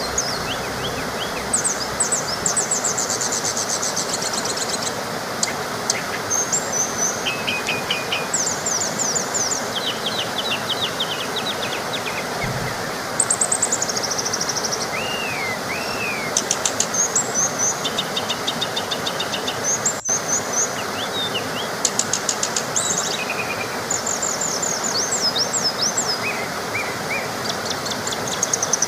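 Small waterfall rushing steadily, with several birds singing over it in quick repeated trills and chirps throughout.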